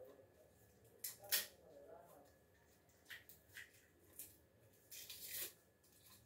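Dry garlic skins crackling and rustling as cloves are peeled by hand: a series of short, crisp, faint rustles, the loudest a little over a second in and another cluster about five seconds in.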